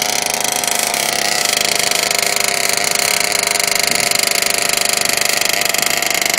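A small two-stroke engine of a radio-controlled off-road car idling steadily, a high, fast buzz that holds an even pitch.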